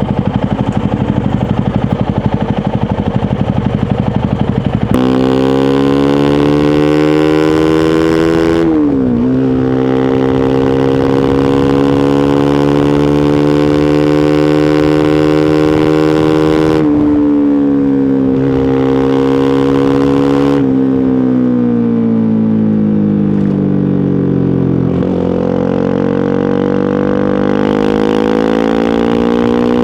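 Honda CRF250 Rally's single-cylinder engine riding along: a rough rumble for the first five seconds, then a strong steady engine note. The pitch dips briefly about nine seconds in, drops at about seventeen and again at twenty seconds, sinks slowly and then rises again near the end.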